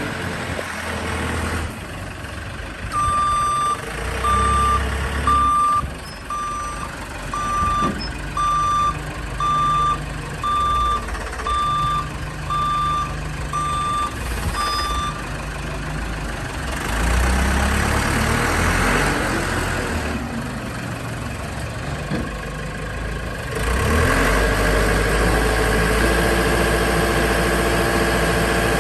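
Construction machine reversing: its backup alarm beeps about once a second, a dozen times, over a running engine. The engine then rises and falls, and settles into a louder steady run near the end.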